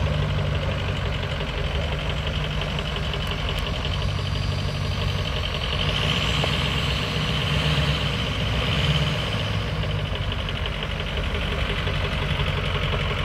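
2004 Ford F-250 pickup's engine idling steadily.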